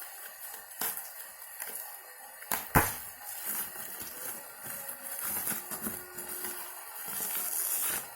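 Packaging being handled and opened: crinkling plastic or paper with scattered clicks and one sharp knock about three seconds in.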